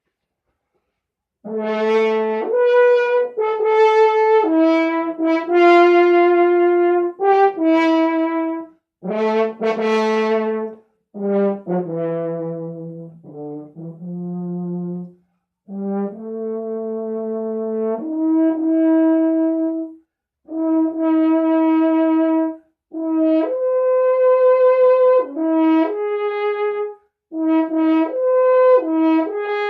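Valved brass horn played solo: a string of held notes in short phrases, starting about a second and a half in, stepping up and down with brief breaks between phrases, with a few lower, softer notes in the middle.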